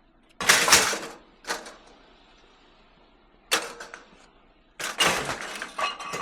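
Scrap metal clanging and clattering as it is dropped onto a truck's load: a loud clatter about half a second in, a lighter knock after it, another clang midway and a burst of several clangs near the end, some of them ringing briefly.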